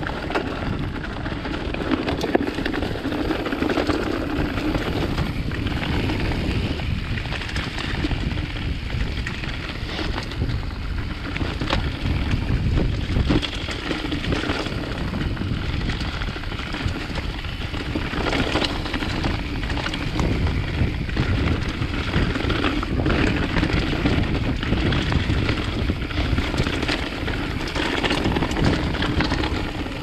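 Wind noise rumbling over a chest-mounted GoPro's microphones as a mountain bike rolls fast down a leaf-covered dirt trail, with tyre noise and scattered clicks and knocks from the bike.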